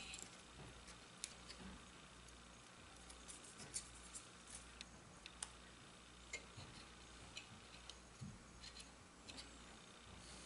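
Faint, scattered light clicks and taps of small cherry wood wedges and a piece of card being handled and set into a wooden divider grid, over a low steady hum.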